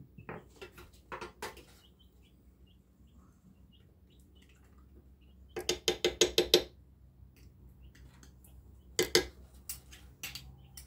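A metal spoon clinking and scraping against a glass mason jar and a metal pot as thick pot pie filling is spooned out of the jar. A rapid run of about eight ringing clinks comes about six seconds in, and another short clatter about nine seconds in.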